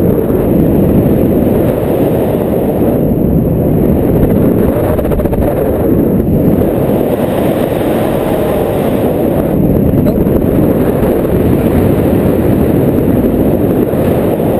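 Wind rushing and buffeting over an action camera's microphone in paraglider flight, a steady loud rumble that swells and eases a little.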